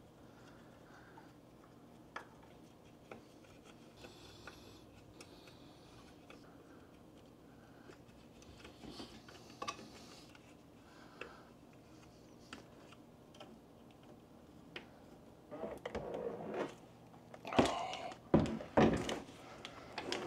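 Faint, scattered clicks and ticks of hands and a tool working on a 3D printer's plastic base. In the last few seconds this gives way to a run of louder plastic knocks and clatter as the printer's parts are handled.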